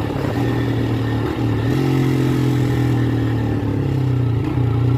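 Single-cylinder engine and aftermarket exhaust of a Honda CG Start motorcycle running steadily while the bike is ridden gently at an even speed. The engine note rises slightly about a second and a half in.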